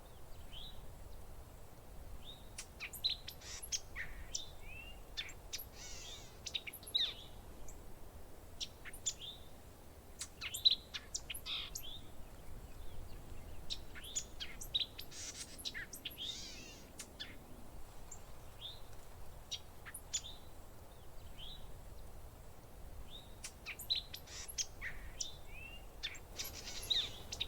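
Parrots chirping and calling: many short, high chirps and curved whistled notes, coming in scattered clusters over a faint steady background.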